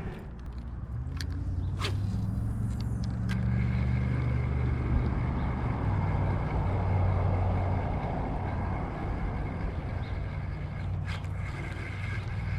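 A motor vehicle's engine drones at a steady low pitch, swelling over the first few seconds and fading away near the end as it passes by. A few sharp clicks sound over it.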